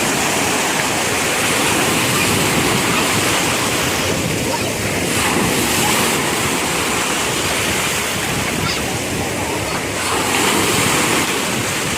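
Sea waves washing onto the shore, a steady rush that swells and eases every few seconds, with wind buffeting the microphone.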